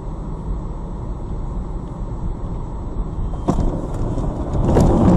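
Vehicle road noise recorded from a dashcam: a steady low rumble. A sharp knock comes about three and a half seconds in, and a cluster of knocks and louder noise follows near the end.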